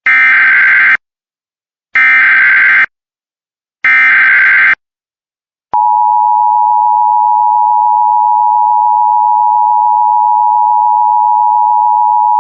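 Emergency Alert System alert opening: three one-second bursts of SAME header data tones about a second apart, then, about six seconds in, the steady two-tone EAS attention signal begins.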